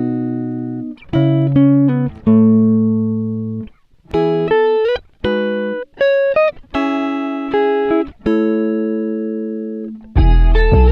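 Background music of plucked notes and chords, each struck sharply and fading away. About ten seconds in, a fuller passage with deep bass begins.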